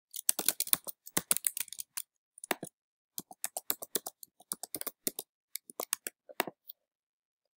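Computer keyboard being typed on in quick runs of sharp key clicks, as a username and password are entered, stopping about six and a half seconds in.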